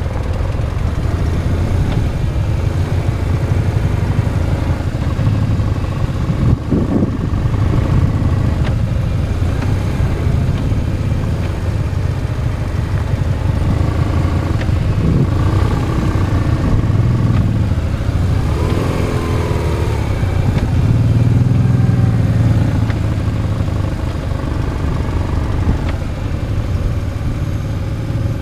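Motorcycle engine running at low speed from close up on the bike, its pitch and level rising and falling with the throttle as the bike rides through slow turns.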